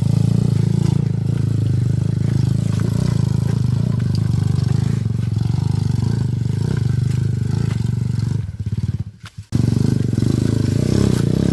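Honda Megapro single-cylinder four-stroke engine in a home-built trail bike running steadily on an off-road ride, with some clatter from the bike. The sound drops away sharply for about a second near the end, then returns.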